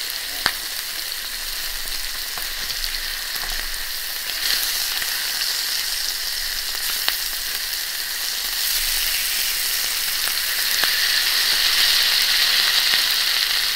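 Ribeye steak sizzling in its juices on a hot flat griddle, a steady hiss that swells louder in the second half. A few sharp clicks come from the metal tongs as they work the meat.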